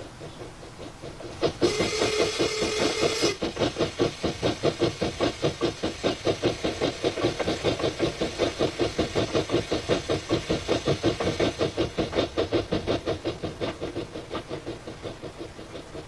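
Model steam locomotive chuffing steadily at about five beats a second as it runs across the trestle, fading near the end. About two seconds in, a loud hissing blast with a steady tone sounds for over a second.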